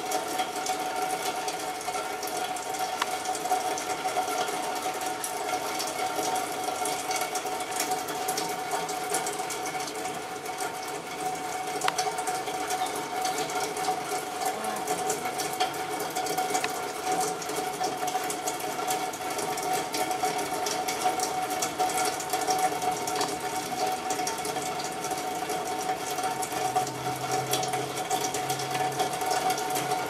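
A steady mechanical hum with a constant high tone, over a faint crackle of fine ticks.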